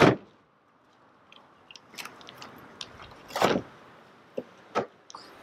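A car door, the Audi TT Mk2's, shuts with one sharp bang at the start. Scattered light clicks and crackly handling noises follow, with a louder crunchy rustle about three and a half seconds in.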